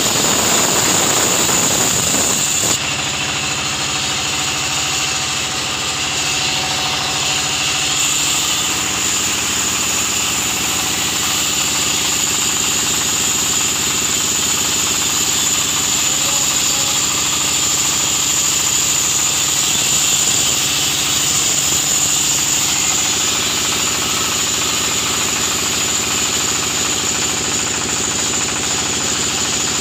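Sawmill saw machinery running steadily, a high whine over a low mechanical drone and rattle. The level drops slightly about three seconds in.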